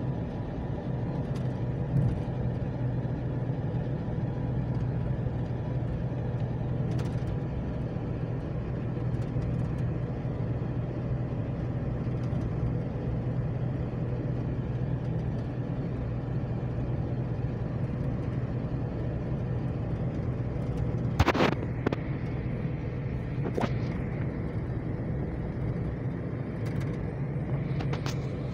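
Steady engine and tyre noise inside a moving vehicle's cabin, with a low hum underneath. A sharp knock about two-thirds of the way through and a smaller one a couple of seconds later.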